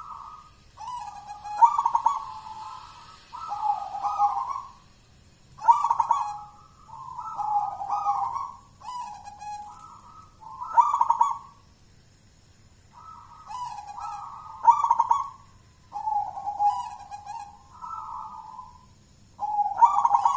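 Local Javanese zebra dove (perkutut) singing: repeated phrases of rolling coos, with a pause of about a second and a half near the middle.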